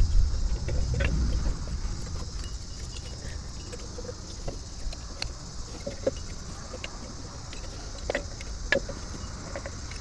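Scattered small metallic clicks and taps as rear drum brake shoes and their hardware are fitted by hand onto the backing plate, over a low rumble that fades in the first two seconds.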